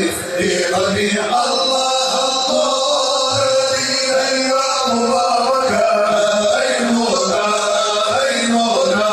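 A group of voices chanting Arabic madih, a devotional praise song for the Prophet, in long held notes that bend slowly in pitch.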